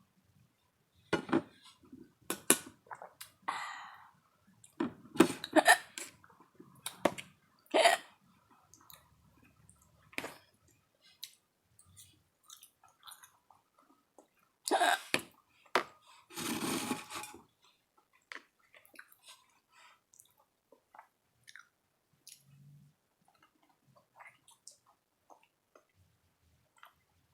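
Close-miked eating: chewing of sausage and utensil clinks on a plate. There is a string of short, sharp sounds in the first eight seconds and a few more in the middle, including one noisier sound about a second long. Most of the second half is quiet.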